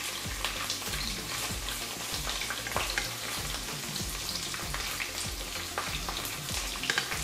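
Sliced onion and garlic sizzling and crackling in hot sunflower oil in a nonstick wok, stirred with a wooden spatula.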